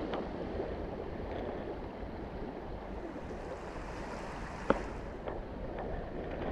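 Steady rushing of a river flowing past a cobble bank, with one sharp click about two-thirds of the way through and a couple of fainter clicks just after.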